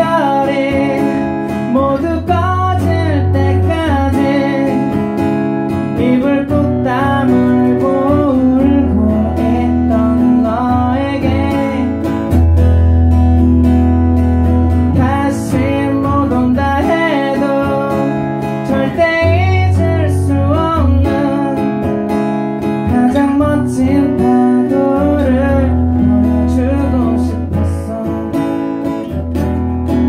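A live song: a solo voice singing over an acoustic guitar being played.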